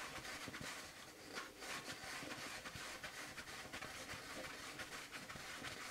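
Faint rustling and crinkling of toilet paper being pulled off the roll and fed into a toilet bowl, with small irregular crackles.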